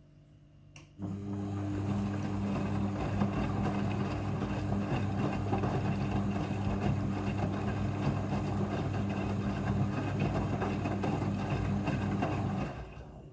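Front-loading washing machine during its rinse cycle: a click, then water rushing through it with a steady electrical hum for about twelve seconds, then it stops.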